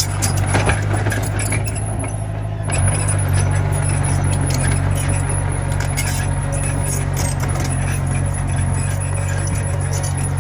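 Diesel engine of a Komatsu mini bulldozer running steadily, with scattered metallic clicks and clanks; the engine gets louder about three seconds in.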